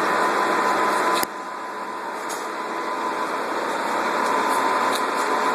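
Steady mechanical hum with a thin high tone running through it. About a second in there is a sharp click, and the hum drops suddenly in level, then slowly builds back up.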